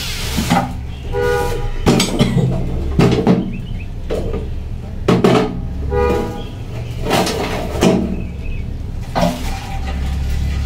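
Metal objects clanking as they are picked up and set down, about ten irregular knocks, several of them ringing briefly, over a steady low hum.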